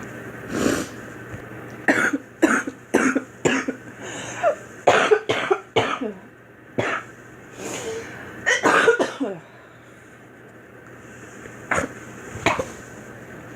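A young woman coughing in repeated short fits of several quick coughs each, with a pause of a couple of seconds before two last coughs near the end.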